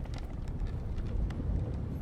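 Sailing-ship ambience: a steady low rumble of wind and sea, with scattered small knocks and clicks from the ship's wooden timbers.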